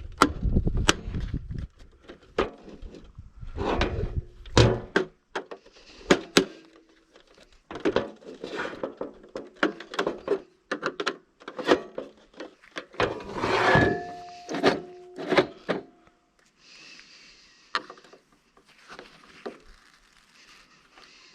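Irregular knocks, clanks and rattles of tools and parts being handled on a safe door being taken apart, a few hits ringing briefly around the middle.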